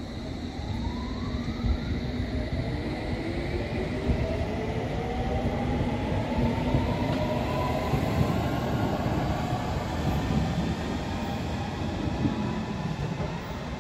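London Underground S Stock electric train pulling away, its traction motor whine rising steadily in pitch as it accelerates, over a low rumble of wheels on rail.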